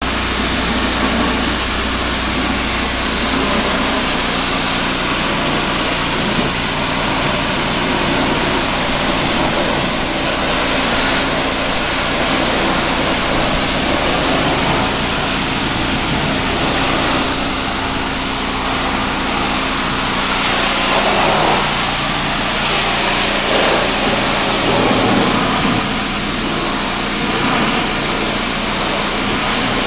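Pressure washer running steadily: its engine drones low under the loud hiss of the high-pressure water jet spraying a pergola.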